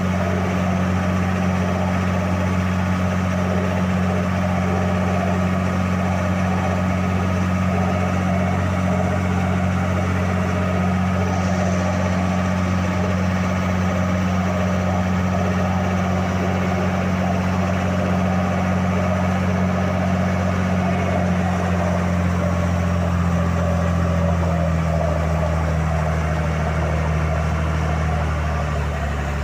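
A rigid inflatable pilot boat's engine running steadily under way, a constant low drone with water rushing along the hull; the engine eases off slightly about three-quarters of the way through.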